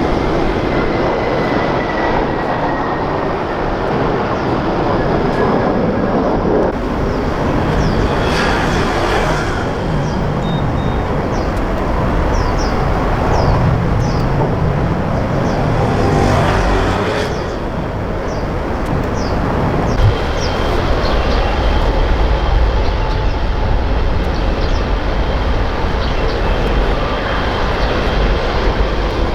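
Jet aircraft engines at an airport: a loud, steady rumble that swells twice and carries a faint high whine in its second half.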